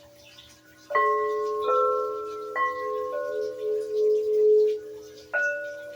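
Metal healing chimes struck five times at different pitches, each strike ringing on and overlapping the last, above a low ringing tone already sounding.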